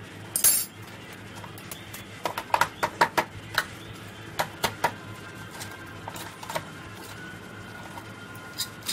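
Crisp deep-fried semolina and rice-flour nuggets knocking and clinking against a stainless steel plate as they are handled, along with a fork against the steel: a string of sharp, separate clicks, thickest in the middle. The hard knocks are the sign of how crisp the nuggets have fried.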